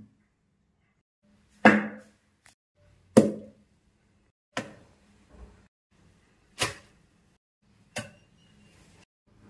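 A row of short whoosh sound effects, about one every second and a half, the later ones quieter than the first two.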